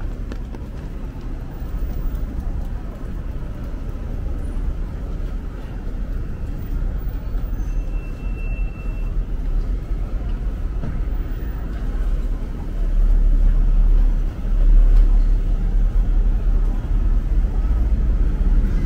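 Busy city street traffic, overlaid with gusty wind buffeting the microphone in a deep, uneven rumble. The rumble swells loudest about thirteen to sixteen seconds in.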